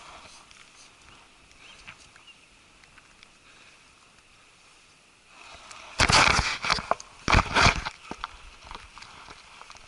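A person jumping down from a climb: a few seconds of faint rustling, then loud scuffing and heavy thuds of landing and scrambling about six to eight seconds in.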